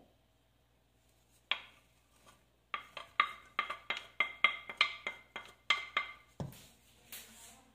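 Wooden spatula tapping and scraping against the rim of a ceramic bowl to knock chopped garlic into a pan: a quick run of ringing taps, about five a second, then a louder knock near the end.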